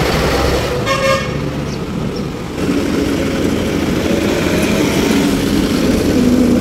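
Tractor engine running steadily, with one short vehicle horn toot about a second in.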